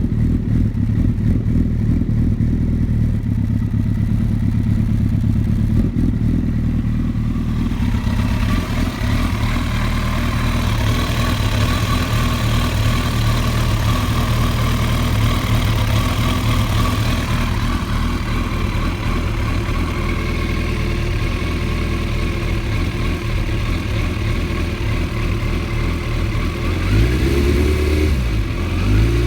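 Engine running at a rough idle, the fault being tracked down. Near the end it is revved briefly, the pitch rising, dipping and rising again.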